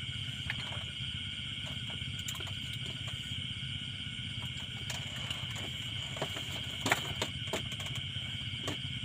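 Steady chirring of night insects such as crickets over a low hum, with scattered light clinks and knocks of a metal plate and dishes as someone eats. The loudest knock comes about seven seconds in.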